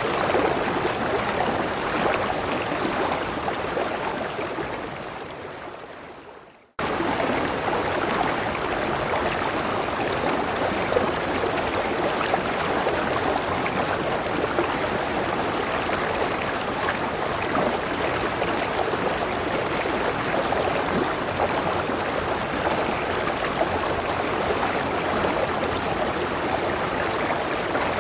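Rushing water of a river and waterfall, a steady hiss. A few seconds in it fades down to near silence, then cuts back in abruptly at full level, the join of a looped recording.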